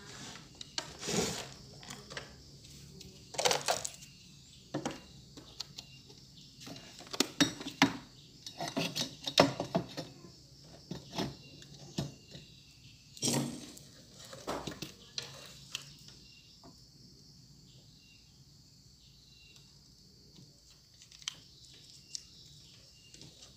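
Knocks, clicks and clatter of a circuit board, test leads and hand tools being handled on a workbench, frequent for the first sixteen seconds or so and then only an odd tick, over a faint steady hiss.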